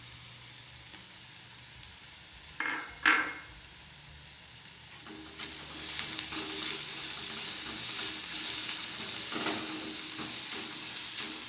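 Onion, ginger, green chilli and freshly added grated carrot sizzling in oil in a kadai while being stirred with a spoon. There are two short knocks a little under three seconds in, and the sizzling gets louder about five seconds in.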